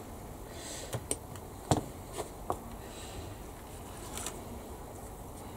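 A few light clicks and taps of small plastic model parts being handled, over faint room hiss. The sharpest click comes a little under two seconds in.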